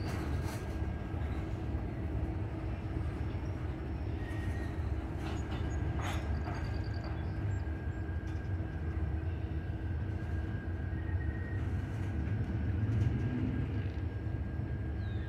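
Freight train of tank cars and boxcars rolling across a steel truss bridge: a steady rumble of wheels on the rails, with a thin steady high ring over it and a couple of sharp clicks about six seconds in.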